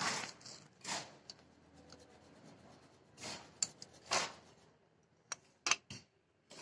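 Micrometer-type torque wrench being adjusted by twisting its knurled handle along the scale, with hand-on-metal rubbing and scraping and a few sharp clicks in the second half.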